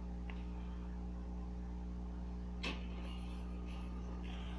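Steady low electrical hum, with a faint click near the start and one sharp click a little past halfway, followed by faint rustling.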